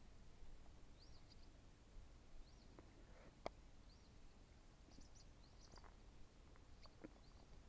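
Near silence: faint outdoor quiet with scattered short high chirps from a small animal or bird and a couple of faint ticks.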